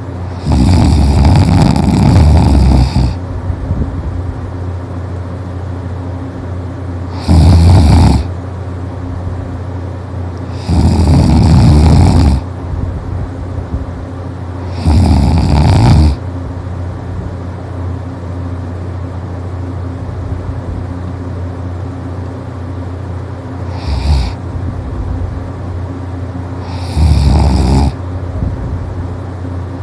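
A person snoring loudly: six long, rasping snores at uneven intervals, a short one among them, with a pause of about eight seconds in the middle. A steady low hum fills the gaps between snores.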